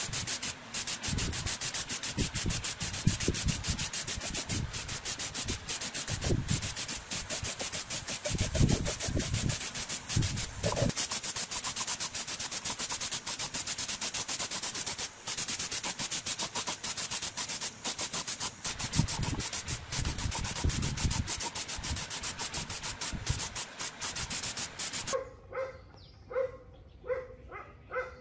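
A gravity-feed paint spray gun hissing steadily as compressed air sprays paint, with a fast flutter in the hiss. The hiss cuts off abruptly a few seconds before the end, leaving an animal's faint short calls repeated several times.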